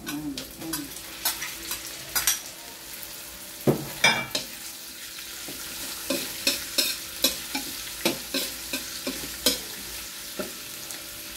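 Chopped garlic and onion sizzling in hot oil in a wok, stirred with a metal spoon that scrapes and clicks against the pan again and again, loudest about four seconds in.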